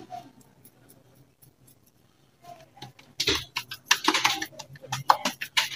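Wet hands patting and pressing soft ground dal-and-chicken kabab mixture into a patty: a quick, irregular run of soft pats and clicks starting about three seconds in.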